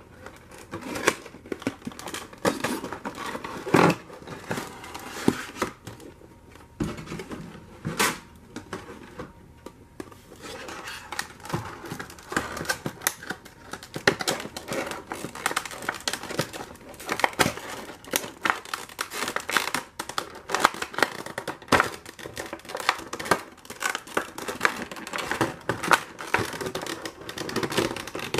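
Hands opening a diecast model airliner's packaging: cardboard sliding and scraping, and a clear plastic blister cover crinkling and clicking as it is pried off the tray. Sharp clicks run throughout, the loudest about four and eight seconds in.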